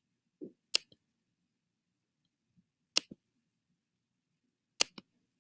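Computer clicks in a small room: three sharp clicks about two seconds apart, each followed at once by a fainter second click, with a soft low thump just before the first.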